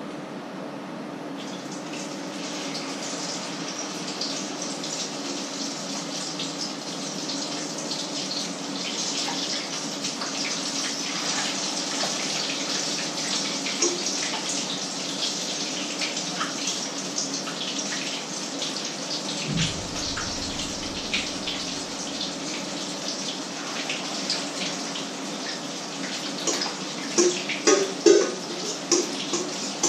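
Batter frying in hot oil in a frying pan, sizzling and crackling steadily, with the sizzle rising about a second in. A few louder knocks and clinks of a spoon against the bowl or pan come near the end.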